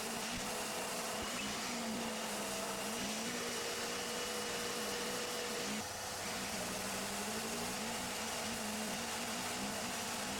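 Erbauer ERO400 125 mm orbital sander running against a wooden handrail, a steady motor drone with a low hum that wavers up and down as the sander is worked back and forth, dipping briefly about six seconds in.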